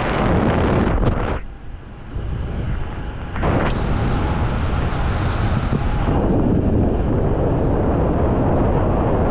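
Wind rushing over the microphone while descending under an open parachute canopy. It drops off briefly about a second and a half in and comes back strongly about three and a half seconds in.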